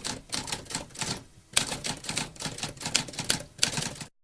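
Typewriter keys clacking in fast runs of typing, with a short pause about a second in, then cutting off suddenly near the end.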